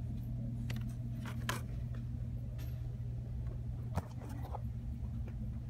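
Phone-camera handling noise: a few sharp clicks and knocks from handling the phone and plastic-packaged phone cases on pegboard hooks, the loudest about four seconds in, over a steady low hum of the store's background.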